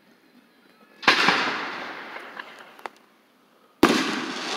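Two fireworks going off: a sharp bang about a second in that fades away with a few scattered cracks, then a second bang near the end.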